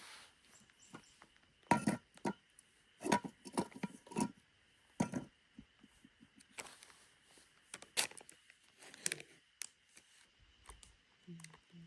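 Irregular knocks, clatters and rustles of objects being handled, a few sharp ones every second or so with quieter handling noise between.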